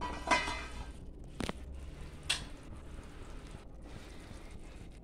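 A spatula stirring curry in a stainless steel pot: a wet stirring sound with a ringing knock against the pot about a third of a second in, then two sharp clicks about a second apart.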